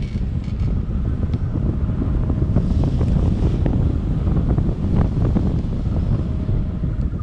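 Wind buffeting the microphone of a camera held out in the airstream of a flying paramotor trike: a loud, steady low rush with no break.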